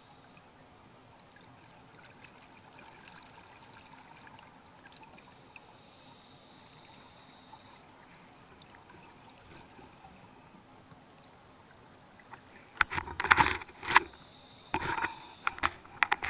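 Underwater, heard through a dive camera's housing: a faint steady hiss of water, then near the end two loud clusters of bubbling about two seconds apart, a scuba diver's exhaled breath venting from the regulator right beside the camera.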